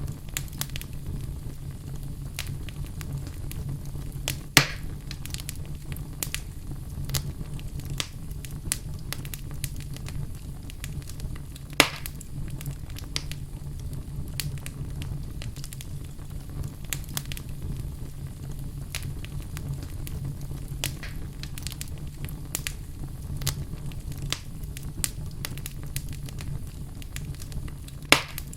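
Burning wood in a fireplace crackling steadily over a low rumble of flame, with three louder sharp pops: one about four and a half seconds in, one about twelve seconds in, and one near the end.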